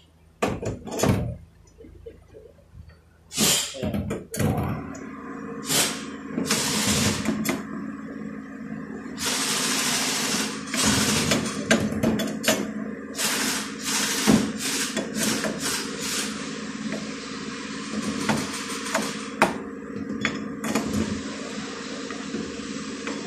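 Bolts being run into an automatic transmission valve body with a hand-spun T-handle socket wrench on a long extension: scattered sharp metal clicks and scraping. A steady hum runs underneath from a few seconds in.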